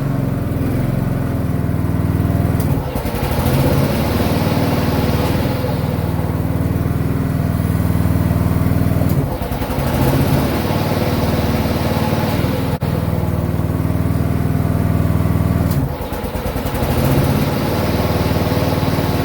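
John Deere F525 mower engine running at reduced speed while its new electric PTO blade clutch is switched in and out, the engine note dipping and shifting every six or seven seconds as the blades engage and stop. This is burnishing of the new blade clutch.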